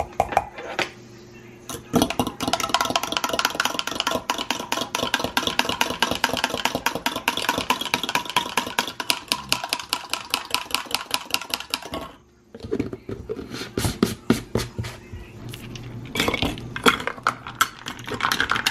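Metal spoon stirring powder into water in a glass mason-jar mug, clinking rapidly and continuously against the glass. The stirring pauses briefly about twelve seconds in, then resumes.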